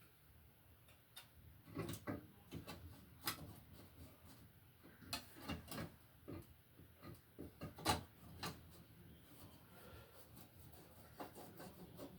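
A plastic cover plate being fitted over a GFCI receptacle box: scattered handling clicks and knocks, the loudest about eight seconds in.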